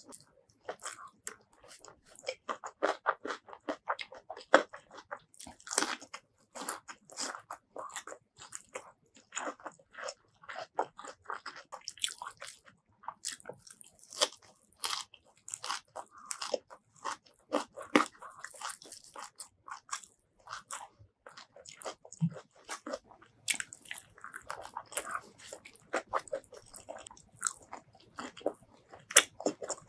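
Close-miked eating sounds: repeated crunchy bites and wet chewing of raw vegetables and rice with sambal, in a dense, irregular run of crackling clicks. A bite into a raw cucumber comes near the end.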